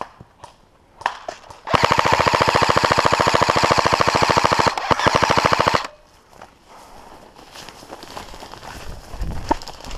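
Airsoft rifle fired on full auto in one sustained burst of about four seconds, a rapid, even rattle of shots that stops abruptly.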